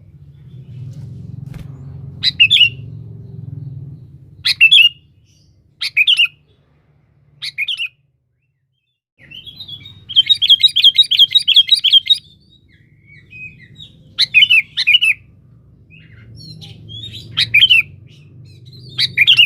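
Sooty-headed bulbul singing short, bubbly whistled phrases every second or two. About ten seconds in comes a fast run of repeated notes, all over a faint low hum.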